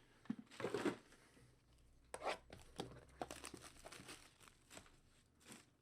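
Faint tearing and crinkling of card packaging being opened and handled, in a few short scratchy bursts with light clicks.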